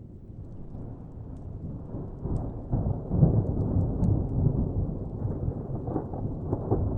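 Distant thunder rumbling, swelling about two seconds in and slowly easing off, with a few faint pops from a crackling wood fire.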